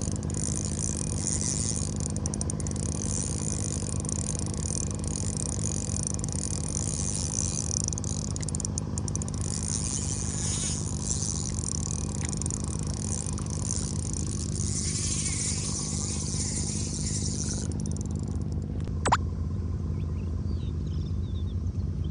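Steady low machine hum, with a high buzzing hiss over it that stops about 18 seconds in, and one sharp click about 19 seconds in.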